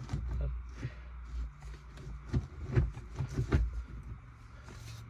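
Scattered clicks and knocks, about half a dozen, as a car's gear lever is moved through the gears and its travel is measured with a tape measure.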